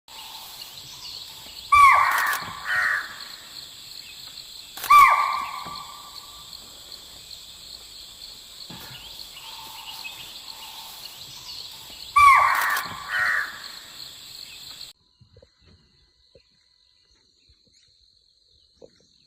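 Three loud harsh animal calls a few seconds apart, each a strong call followed by a shorter one, over a steady high drone of insects. The drone cuts off suddenly about fifteen seconds in.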